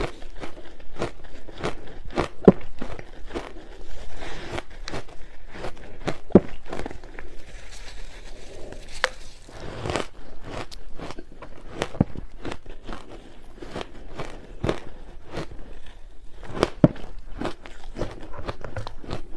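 Close-miked crunching of hard ice chunks dusted with matcha powder being bitten and chewed: an irregular run of sharp cracks and crunches, several a second, with softer grinding stretches as the ice is chewed down.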